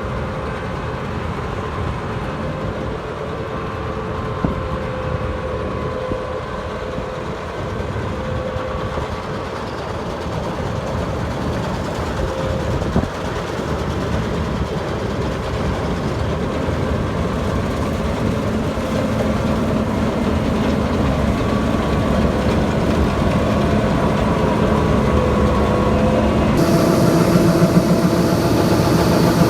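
Heavy farm machinery running steadily, a dense engine and machine noise that grows slowly louder, with a change in the sound near the end.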